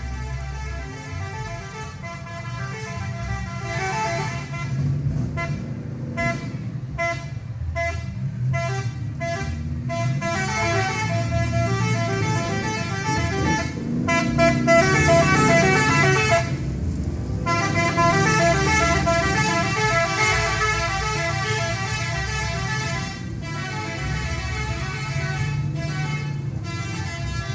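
A bus's "telolet" musical horn playing a multi-note tune over and over, with the bus engine running underneath.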